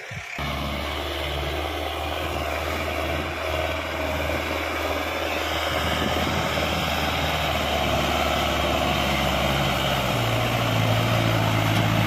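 Sonalika Tiger tractor's diesel engine running steadily under the heavy load of a fully loaded soil trolley, its pitch rising about ten seconds in as the engine revs higher.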